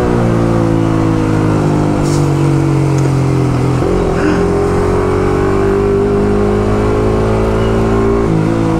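Yamaha R15 V3's 155 cc single-cylinder engine running under way: its note sinks slowly as the bike slows, steps up to a higher note a little under four seconds in with a downshift, then climbs steadily as it picks up speed, changing again near the end.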